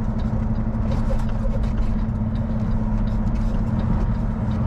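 Semi-truck diesel engine running at low speed, a steady low hum heard from inside the cab, with a few faint clicks over it.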